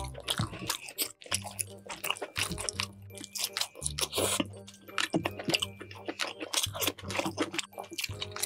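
Close-miked eating of rotisserie chicken: a rapid run of crunchy, wet mouth clicks and chewing.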